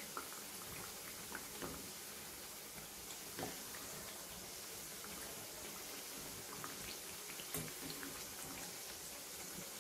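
Moong dal kachoris deep-frying in oil: a low, steady sizzle with a few scattered small clicks.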